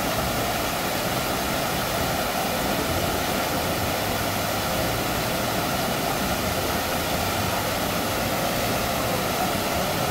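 Steady rushing water, an even noise at a constant level throughout.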